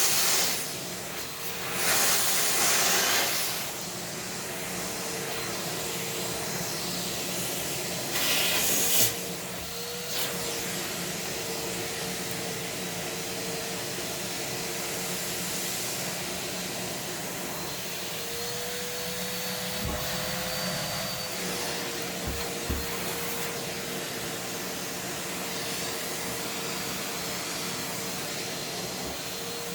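Numatic Hetty vacuum cleaner running steadily, with a few loud rushes of air in the first ten seconds. Its motor note rises for a few seconds past the middle as the nozzle is blocked by socks and feet.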